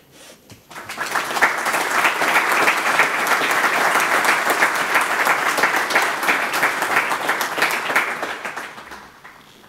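Audience applauding: dense clapping that starts about a second in, holds steady, then dies away near the end.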